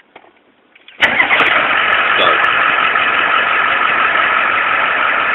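A 1991 Ford F-350's 7.3L IDI diesel being started with the ignition key turned to Start: a loud, steady engine-starting sound that comes in suddenly about a second in and holds.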